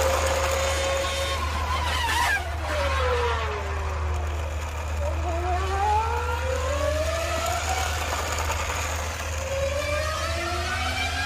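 A motor whine that falls steeply in pitch a couple of seconds in, then rises again twice, like a vehicle slowing and then speeding up. A steady low hum runs underneath.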